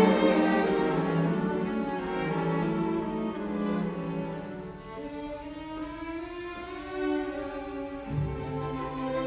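Background music: slow, held notes on bowed strings, violin and cello. A deep low note comes in near the end.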